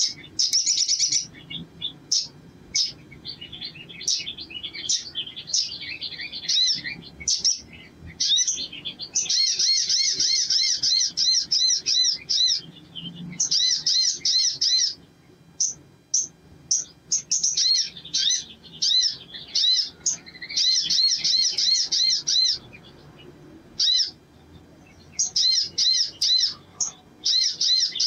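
Male olive-backed sunbird singing: sharp high chirps and long runs of rapidly repeated trilling notes, broken by short pauses.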